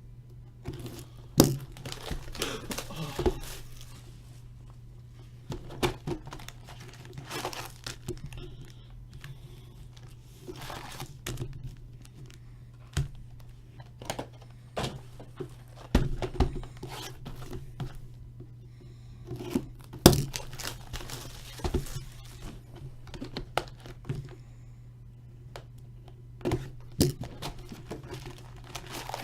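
Sealed hockey card boxes being opened by hand: irregular tearing and crinkling of wrapping and cardboard, with short rips and light knocks at uneven intervals over a steady low hum.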